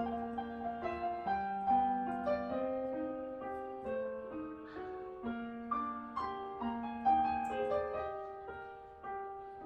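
Piano music: a slow melody of held single notes over lower held notes.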